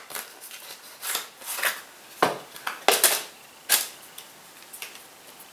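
Small cardboard box of a Make-Up Eraser cloth being opened by hand and the cloth pulled out: a run of short rustling and scraping handling noises, busiest in the middle.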